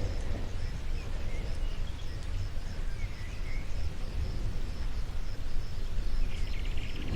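Outdoor nature ambience: scattered bird chirps over a steady low rumble and hiss. A high-pitched call repeats a few times a second throughout.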